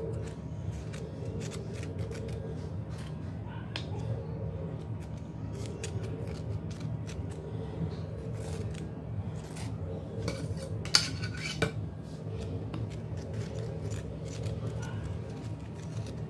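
A metal icing spatula scraping and clicking against buttercream and an aluminium cake turntable as the frosting on the cake's sides is smoothed, with the sharpest clink about eleven seconds in. A steady low hum runs underneath.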